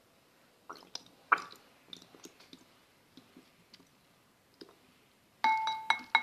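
Clicks and light knocks of a glue bottle being handled and tipped over a bowl, then near the end three quick taps that make a hard dish ring with a clear tone.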